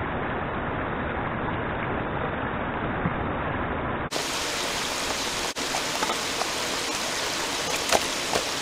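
Creek water rushing steadily, a constant hiss that turns brighter about halfway through. A few light knocks near the end.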